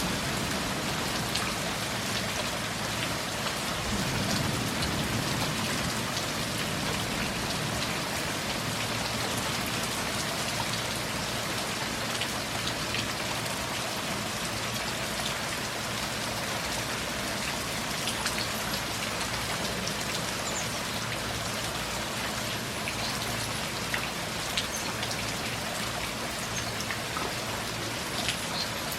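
Steady rain falling, with individual drops ticking sharply close by. There is a brief low swell about four seconds in.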